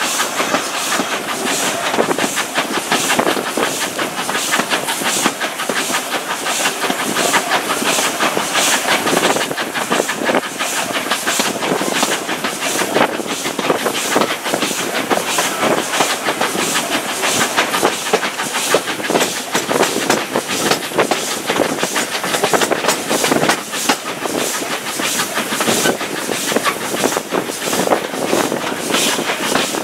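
Steam train running along the line: a steady hiss of steam with a regular beat repeating about once a second, over the clatter of wheels on the rails.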